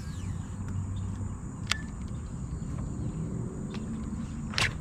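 A steady high-pitched chorus of crickets and other insects, over a low rumble, with a single sharp click about two seconds in.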